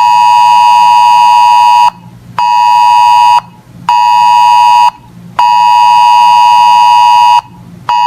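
Weather radio alert tone: a loud, steady, high electronic beep. It repeats in a pattern of one long beep and two short ones, signalling an incoming National Weather Service alert.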